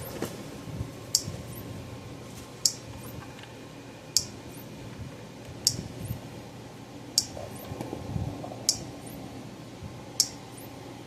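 Power Wizard PW5000XD electric fence charger pulsing, with a sharp click about every second and a half, each followed by a faint tick. It is firing its output again after its transformer's output wires were re-soldered.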